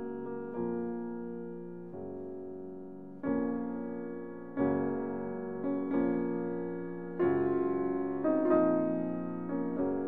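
Background music: slow piano chords, each struck and left to fade, a new one about every second or so.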